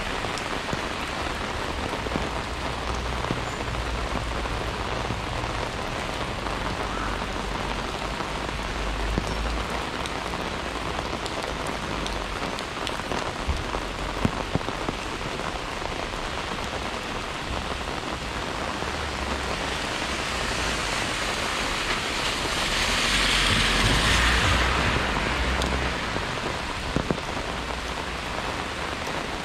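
Steady rain falling, with scattered sharp drop ticks; a louder hiss swells and fades about two-thirds of the way through.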